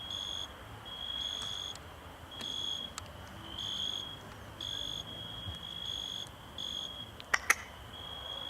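Crickets chirping: a high, steady tone repeating in pulses about once a second. Near the end come two sharp clicks close together.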